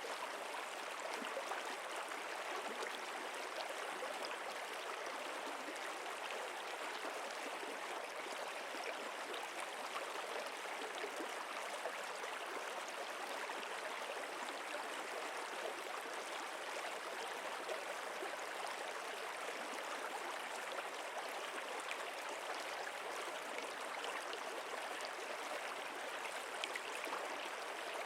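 Steady rush of running water, an even, unbroken wash of sound.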